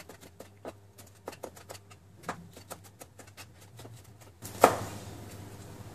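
Chef's knife slicing a red chili into thin strips on a plastic cutting board: a quick run of light taps on the board, several a second, then one louder knock about four and a half seconds in.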